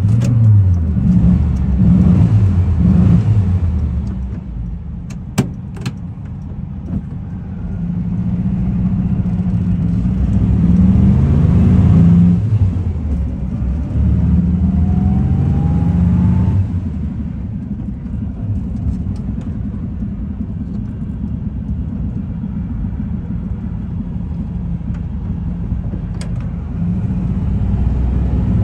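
1961 Volkswagen Kombi's rear-mounted air-cooled flat-four engine, heard from inside the cab while driving. The engine note climbs and then drops back several times as it pulls away and changes gear, then runs more evenly at a steady speed for the second half.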